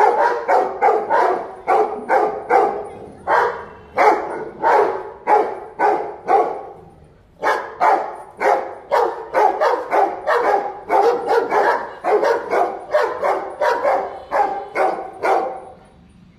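A Doberman and a Rottweiler barking hard in quick runs, about two to three barks a second with a couple of short breaks, stopping near the end: alarm barking at a stranger.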